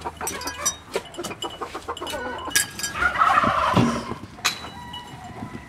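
Digging sounds: many short knocks and scrapes of soil and bedding being dug and clawed at by terriers and people, with short animal calls among them.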